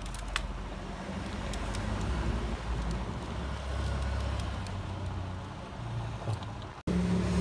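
Low, fluctuating rumble of background road traffic, with a few faint clicks near the start.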